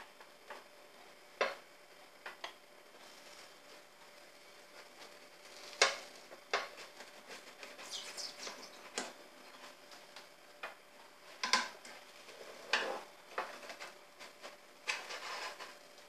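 Scattered light knocks, clicks and scrapes of a spatula and a non-stick frying pan on a gas hob's grate as a pancake cooks, over a faint steady hum.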